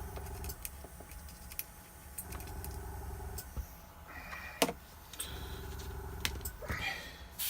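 Scattered light clinks and taps as paint is thinned in an airbrush's paint cup, the sharpest about four and a half seconds in, over a low steady hum.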